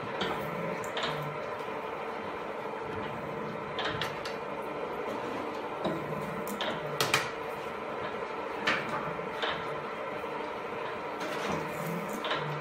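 Metal slotting on a FUS22 milling machine, cutting a keyway in a motor shaft: a steady machine hum with irregular sharp metallic clicks and short scrapes from the cutting strokes.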